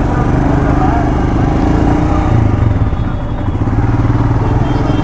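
Motorcycle engine idling steadily with a rapid low putter, with people's voices in the background.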